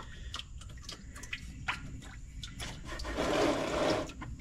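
Oil filter being unscrewed by hand, with small scattered clicks and knocks. About three seconds in comes a splash of about a second as the filter comes free and motor oil pours out into the drain pan.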